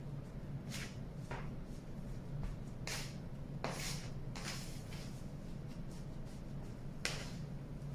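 Hands kneading a lump of rice-flour and white-glue cold porcelain clay against a stainless steel bowl: about six short scuffing, rubbing sounds at irregular intervals over a low steady hum.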